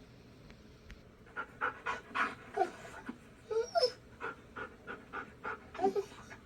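Dog panting quickly, about three breaths a second, starting about a second in; a few of the breaths carry a short whine.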